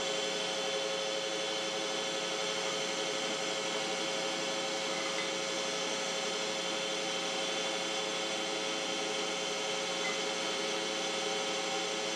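Metal lathe running with a steady motor and gearing hum.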